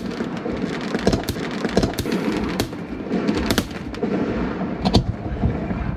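Aerial fireworks display: a continuous crackle of bursts with sharp bangs scattered through it, one of the sharpest near the end.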